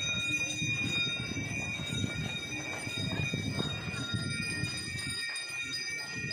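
Bells ringing on without a break, several steady high tones held together over a dense, irregular low rumble.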